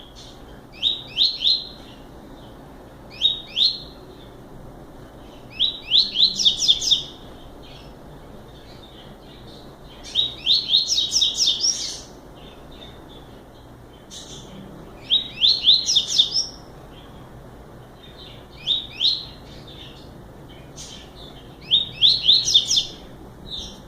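Double-collared seedeater (coleiro) singing the short 'máquina' song: seven phrases of rapid, high, repeated downward-sweeping notes, each about one to two seconds long, with pauses of a few seconds between them.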